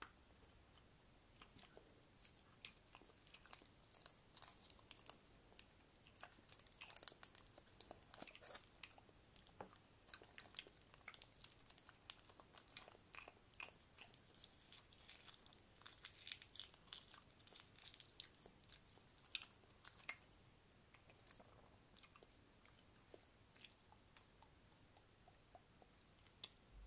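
Close-miked wet mouth sounds: a rapid run of soft clicks and smacks from the lips and tongue, densest in the middle and thinning out near the end.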